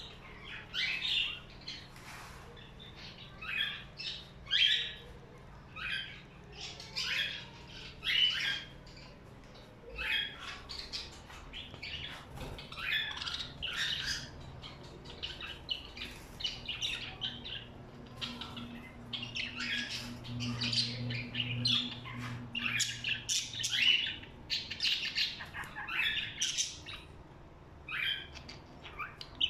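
Pet budgerigars and cockatiels calling: a busy run of short squawks and chirps that come in quick bunches with brief gaps between.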